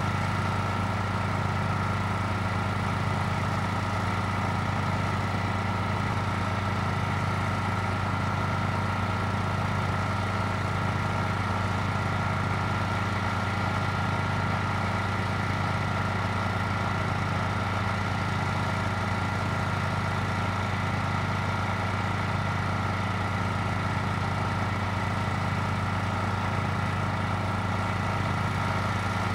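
An engine idling steadily: an even low hum with a faint regular pulse about once a second.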